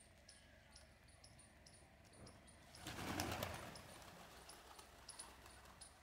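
Pigeons' wings flapping in a short flurry about three seconds in, as birds take off from the ground. Through it a high, thin chirp repeats steadily about twice a second.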